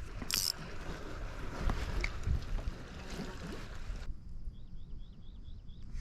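Water sloshing and trickling around a fishing kayak, with a few sharp knocks early on. About four seconds in, the sound changes abruptly to a quieter low rumble, with a quick run of about six short high chirps.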